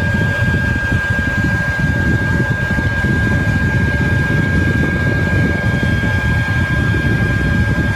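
Hair dryer running steadily: a constant rush of air with a steady high whine from its motor.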